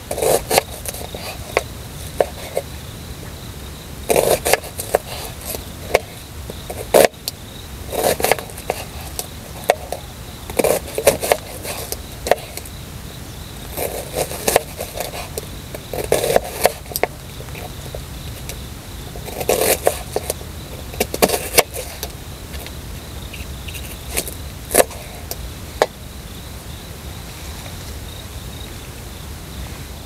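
Irregular bursts of scraping and knocking every few seconds, with sharp clicks among them, over a faint steady high insect hum.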